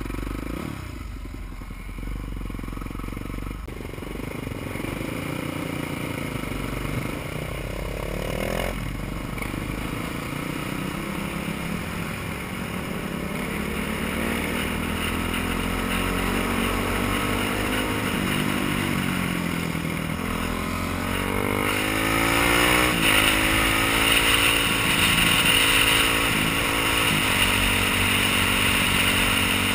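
Honda supermoto motorcycle engine under way, its revs rising and falling as it accelerates and shifts through the gears, with a sharp change about nine seconds in. A rushing wind noise on the microphone grows louder in the second half as speed builds.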